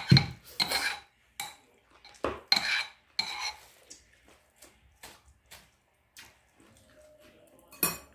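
Eating utensils clinking and scraping against bowls and dishes in several short clattering bouts, with lighter ticks between.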